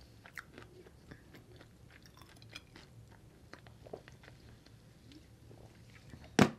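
Close-miked mouth sounds of a person drinking from a bottle of dark soda and chewing: small wet clicks and swallows. A single loud thump comes near the end.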